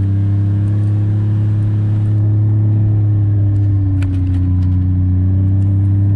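ATV engine running steadily while driving, its pitch dipping slightly about four seconds in, with a few light clicks or rattles around the same time.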